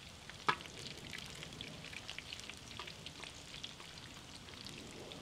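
Steak fries sizzling and crackling in shallow oil on a steel plow-disc cooker, nearly done. A single sharp click comes about half a second in.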